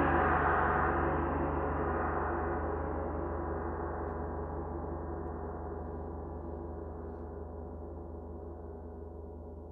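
A 32-inch Oetken Komet No 3 gong ringing out after a strike, with no new stroke. Its sound fades slowly and evenly: the bright upper shimmer dies away first while the lower tones carry on.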